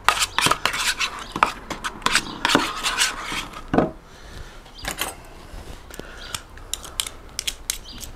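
A spoon mashing and stirring softened butter with chicken seasoning in a dish, scraping and clicking against it, busiest in the first half and then sparser.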